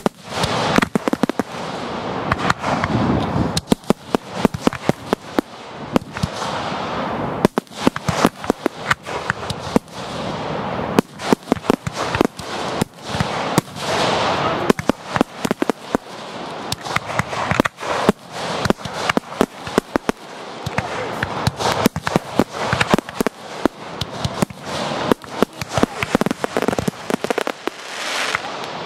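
Fireworks display being fired at close range: a dense, unbroken run of sharp bangs and crackles, with a noisy rush between them.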